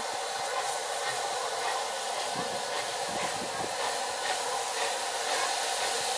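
Rebuilt West Country class steam locomotive approaching, heard mainly as a steady hiss of steam with faint, irregular exhaust beats.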